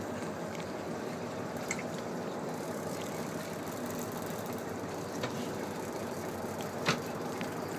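Steady hum of a sport-fishing boat's engine idling, with a few light clicks, the sharpest near the end.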